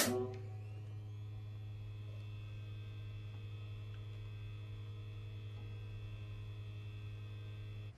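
A sharp click, then the electrical hum of a wall-mounted charging unit powering up: a steady low hum with a high whine that rises over the first second and then holds steady.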